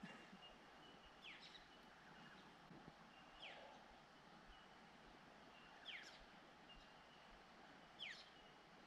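Quiet creekside ambience with a bird repeating a short, quick downward-sweeping call about every two seconds, four times, with faint thin high notes between the calls.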